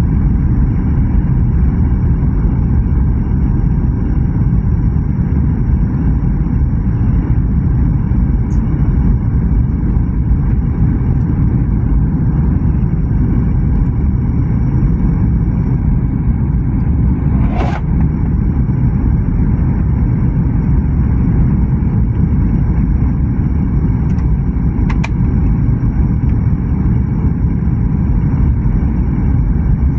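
Steady low cabin noise of a jet airliner's engines and rushing air, heard from a window seat during the descent to land. A short click sounds a little past halfway, and two fainter ones later.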